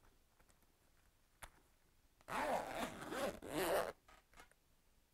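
Zip on a Helite backpack airbag's back-protector compartment being pulled open in two strokes about two seconds in, after a small click.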